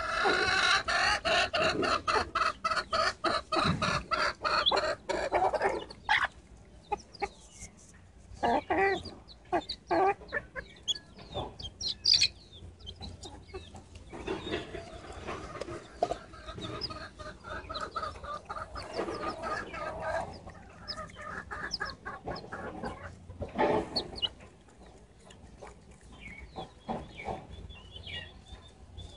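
Chickens clucking, a dense run of quick clucks for the first several seconds, then scattered clucks and calls while they peck rice from a hand.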